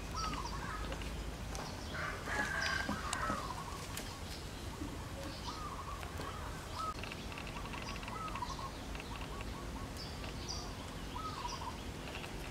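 Birds calling: many short chirps and whistles throughout, with a louder burst of calls about two seconds in, over a steady low rumble.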